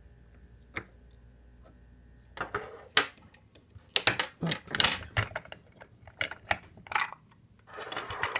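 Small metal lock and picking tools being handled: a string of sharp clicks, knocks and rattles starting about two and a half seconds in, after one lone click near the start.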